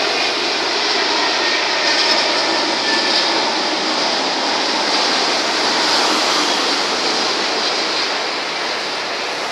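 Jet noise from an Airbus A330-900neo's Rolls-Royce Trent 7000 engines as the airliner passes close overhead on final approach with its gear down: a steady, loud rushing sound that swells a little in the middle and eases slightly near the end.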